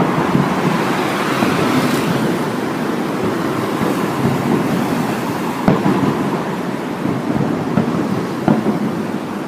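Fireworks shells bursting one after another, their booms running together into a continuous rolling rumble, with a few sharper cracks about halfway through and again near the end.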